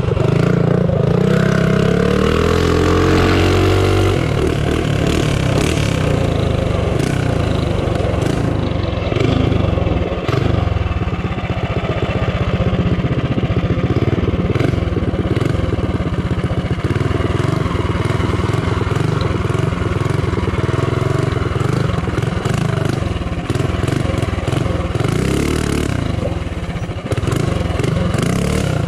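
Tillotson 212E single-cylinder four-stroke engine on a built Baja Warrior mini bike, run hard under way. It accelerates with a rising pitch over the first few seconds, then keeps running at high revs as the throttle is worked, easing off briefly near the end.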